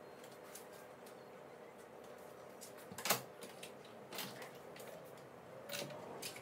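A door's latch and handle: one loud sharp click about halfway through, then a few lighter clicks and a brief squeak as the door is pulled open.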